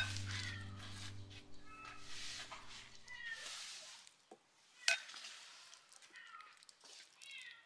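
A small animal calling over and over, each call short and falling in pitch. A low steady hum fades out in the first couple of seconds, and sharp knocks come at the start and about five seconds in.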